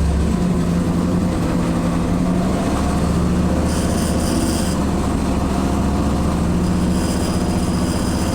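1991 Chevrolet Camaro's engine running steadily under light throttle, heard from inside the car, with a metallic ting/rattle from under the car coming in for about a second near the middle and again for a few seconds near the end. The rattle is a vibration in the transmission tunnel, which the owner suspects comes from a loose washer and screw.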